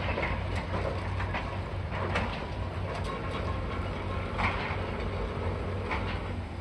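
High-reach demolition excavator running with a steady low engine hum while its jaws break into a concrete building, with irregular cracks and crunches of breaking concrete and falling debris, the loudest about two seconds in and about halfway through.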